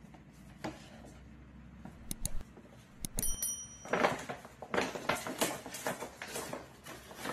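Stiff paper shopping bag rustling and crinkling in irregular bursts as it is handled and worked down over a small dog, starting about four seconds in. Before that come a few light clicks and a brief high-pitched tone.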